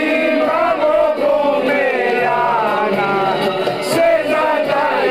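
A group of men singing together loudly, several voices at once in a continuous chant-like song.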